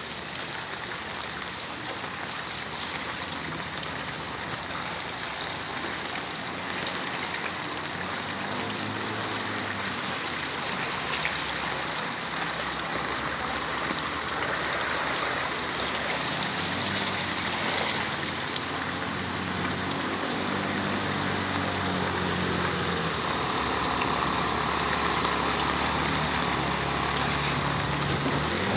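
Steady rain and floodwater noise, with a motorcycle engine running through the flood water in the background, coming and going and growing louder near the end as it approaches.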